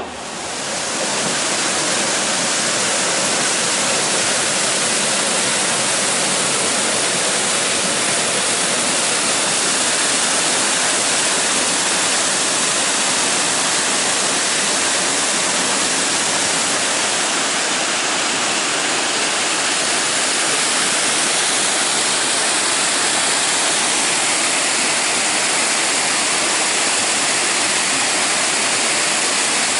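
Waterfall: a steady, unbroken rush of falling water, filling in within the first second.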